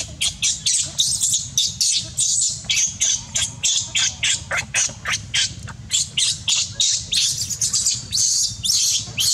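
Newborn baby monkey screaming, a fast run of short, high-pitched shrieks about three a second without a break: distress cries while an adult monkey pulls at it.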